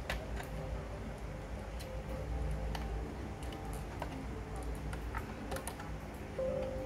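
Light, irregular clicks and taps of fingers handling wires and small components inside an opened Dell 990 mini desktop power supply, over a low steady background hum.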